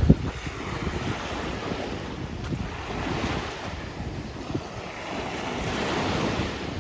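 Sea waves washing onto a beach, with wind buffeting the microphone. The surf swells about three seconds in and again near the end.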